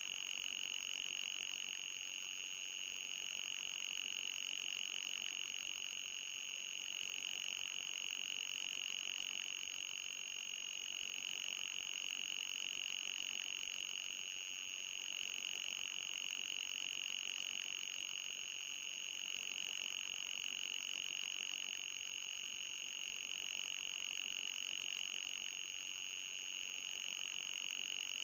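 Electronic anti-mosquito repellent tone: a steady, high-pitched whine with a fainter, higher tone above it, swelling and easing slightly every several seconds.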